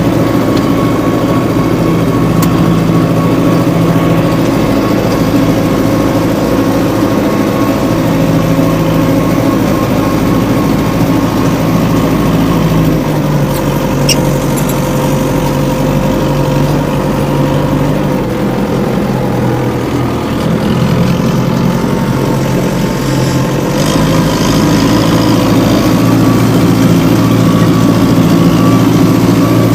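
Homemade minitractor's engine running steadily. Its note drops and the sound eases for a few seconds past the middle, then picks up again.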